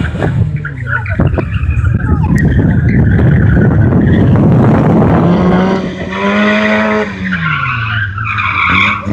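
Engine-swapped Fiat 126p rally car driven hard, tyres skidding as it slides through tight turns on pavement. Near the end the engine revs rise and fall twice.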